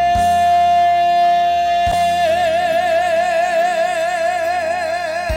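Trot song's closing note: a male singer holds one long note over the band accompaniment, steady at first and then with a wide, even vibrato from about two seconds in. A few low drum beats sound underneath.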